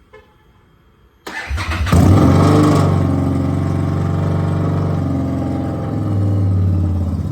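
A vehicle engine is cranked by its starter and catches about a second and a half in. It revs briefly on start-up, then settles into a steady idle.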